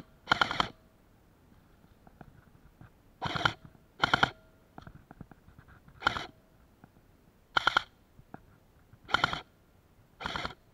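Airsoft rifle firing about seven short bursts of a few rapid shots each, spaced irregularly a second or two apart.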